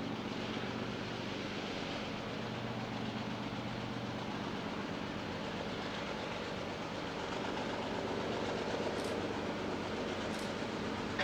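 Freight train rolling past steadily, the rumble of its cars on the rails under a low, steady engine hum, getting a little louder near the end.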